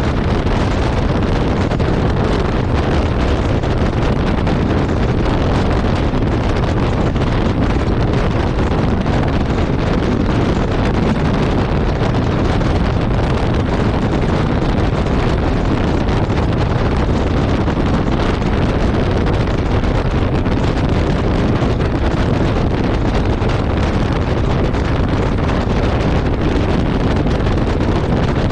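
Steady wind rush buffeting the microphone of a motorcycle ridden at highway speed, with the road and engine noise of the bike lost under it.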